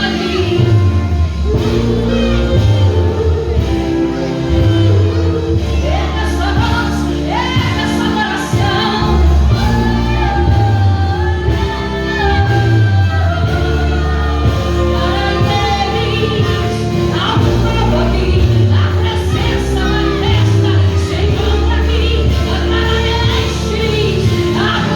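Live worship music: a band with strong bass and a female-led group of singers in a large hall.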